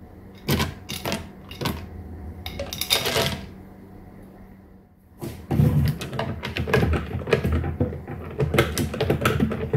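Handling of a plastic blender jar: a few clicks, then chocolate chips rattling in from a steel bowl about three seconds in. From about halfway on, a spatula stirs the thick cream, knocking and scraping against the jar's walls in quick irregular clicks.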